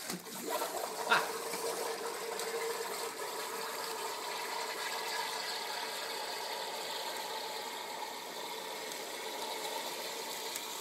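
Keyboard air-duster can held upside down, spraying its liquid propellant into a cup of water in a steady hiss, chilling the water into slush. A sharp click about a second in.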